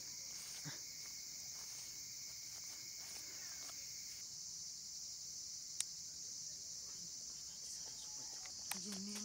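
Crickets chirring steadily in a high, even band. A single sharp click comes about six seconds in.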